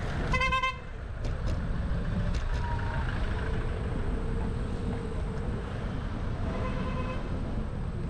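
A vehicle horn gives a short toot about half a second in, with a fainter horn-like tone near the end, over a steady low rumble of road traffic.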